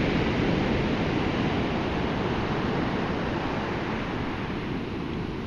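Heavy surf breaking and washing on the beach, a steady rushing noise with wind buffeting the microphone.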